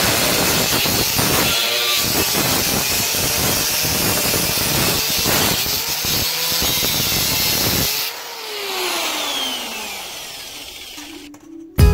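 Angle grinder with a cut-off disc slicing through thin sheet metal held in a vise, a steady harsh cutting noise. About eight seconds in the cutting stops and the disc winds down with a falling whine.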